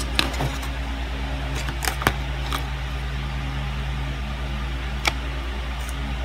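A plastic knife and fork clicking a few times against a paper hotcake tray, over a steady low hum.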